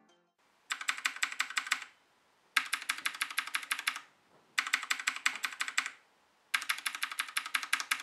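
Fast typing on a Sades K10 mechanical keyboard fitted with round, typewriter-style keycaps: four short bursts of quick clacking, each about a second long, with brief silences between.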